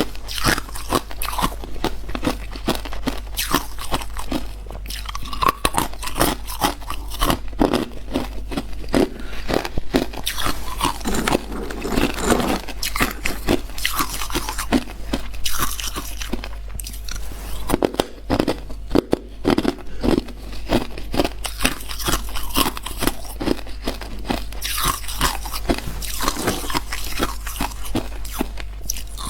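Hard clear ice being bitten and chewed, with dense, irregular cracking and crunching that keeps going.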